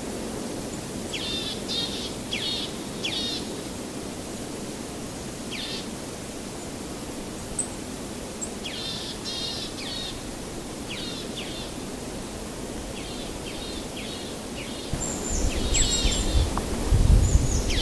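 Small birds chirping in short repeated bursts over a steady outdoor background hiss. Near the end a louder low rumble comes in.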